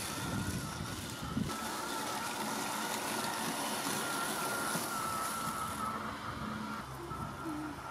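Ecovacs Goat G1 robot lawn mower running across the grass, its brushless motors giving a steady high whine that wavers slightly in pitch. A low rumble is heard during the first second and a half.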